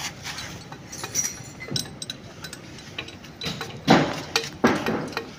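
Scattered metallic clinks and taps from valve parts and tools being handled on a bare Mitsubishi Fuso 6D16 diesel cylinder head. Two louder knocks come about four seconds in.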